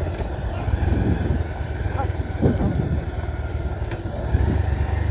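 Steady low rumble of a road vehicle in motion.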